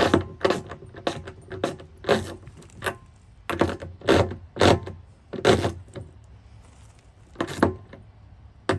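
Fastening the hardware of a metal latch bracket onto a plastic salt-spreader hopper by hand: a run of short, sharp clicks and rattles about two a second, thinning out after about five seconds to a couple of single clicks near the end.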